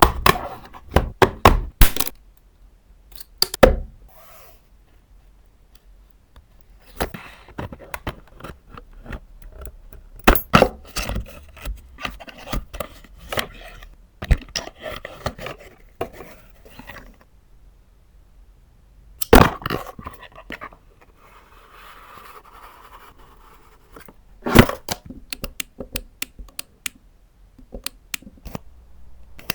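A zoom flashlight and its packaging handled close to the microphone: scattered sharp clicks and taps, in several clusters, with stretches of rustling and scraping between them.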